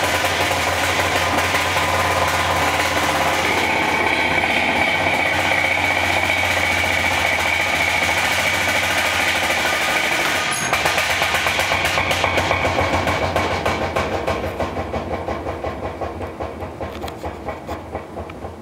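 Kenmore top-load washing machine in its spin cycle, running loud with a steady low hum and a high whine. About ten seconds in there is a click at the cycle knob, and the noise turns into a rhythmic beating that slowly fades as the tub winds down.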